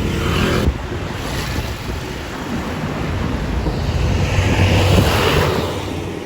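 A bus passing close by: a noisy rumble of engine and tyres that builds to its loudest about five seconds in, then eases off.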